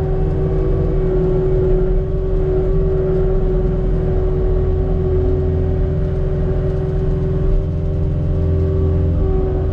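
Cat 289D3 compact track loader's diesel engine running steadily as the machine works the dirt, heard from inside the cab, with a steady whine over the low engine rumble.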